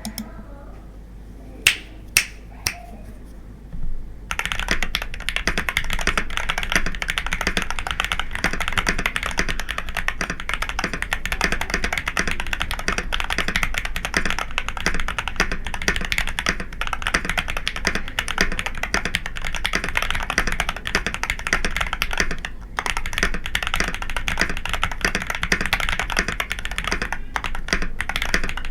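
Akko 3098B mechanical keyboard with Jelly Strawberry V3 switches: three single key presses, then rapid continuous typing from about four seconds in, many keystrokes a second.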